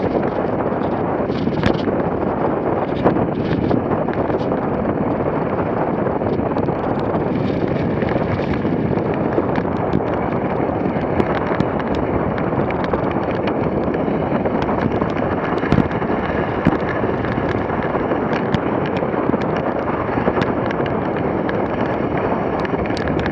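Dogsled running fast over packed snow at about 30 km/h: a steady rush of runner noise and wind on the microphone, with frequent small clicks and knocks from the sled.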